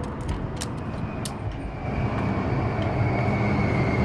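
Low, steady rumble of a passing road vehicle that grows louder about halfway through, with a faint steady high whine over it. A few light clicks come from handling the wires and a small hand tool.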